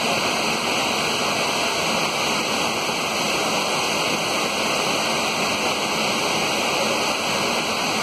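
Steady rushing of a waterfall: a loud, even hiss of falling water that does not change.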